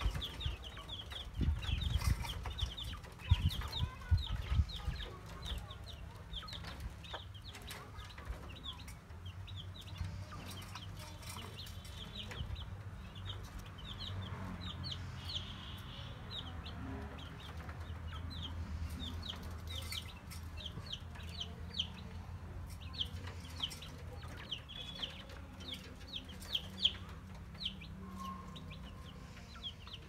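Chicks peeping: a steady stream of short, high peeps, each sliding downward, several a second. A low rumble runs underneath, and a few knocks come in the first few seconds.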